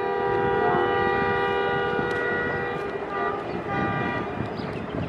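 Horn of the ZCU-30 diesel locomotive blowing one long blast, then two short toots about three seconds in, over the low rumble of the approaching train.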